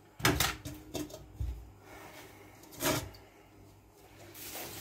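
Peeled carrots set down into a wooden bowl and a plastic peeler laid on the countertop: a quick cluster of knocks and clatter at the start, a dull thump about a second and a half in, and another knock about three seconds in.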